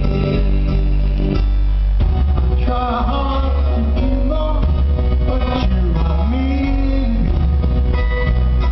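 A live rock band playing, with guitar and a steady bass line, heard from among the audience in a concert hall. A voice starts singing about two and a half seconds in.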